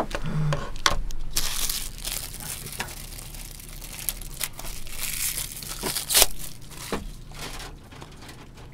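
Plastic takeout containers, bowls and a plastic ladle being handled while stew is ladled out: crinkling, scraping and light knocks, the loudest a sharp knock about six seconds in.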